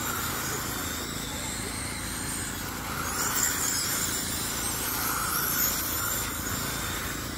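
Several radio-controlled sprint cars whining around a dirt oval, their high-pitched motor whine rising and falling in pitch as they pass and lap.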